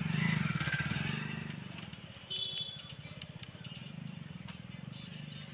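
A vehicle engine running with a fast, even throb, loudest near the start and slowly fading. A brief high tone sounds a little over two seconds in.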